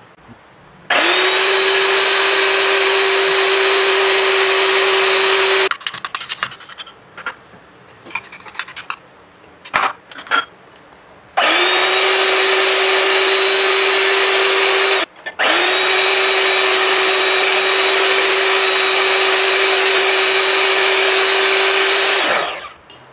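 Electric hand mixer running at a steady high pitch as its beaters whip eggs in a glass bowl. It runs in three stretches: a pause in the middle with scattered clicks and taps, then a brief stop, then it winds down near the end.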